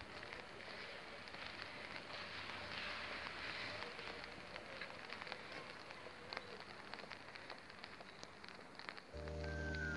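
Light rain falling, with many small ticks of drops landing close by. Background music comes in near the end.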